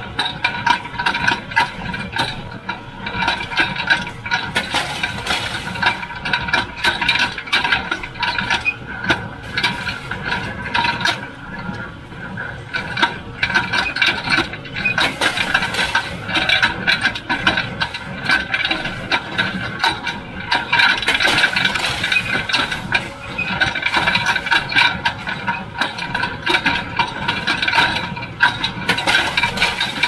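John Deere 348 square baler with a #42 pan kicker working in the field: a continuous mechanical clatter and rattle of the baler's moving parts, over the tractor's engine.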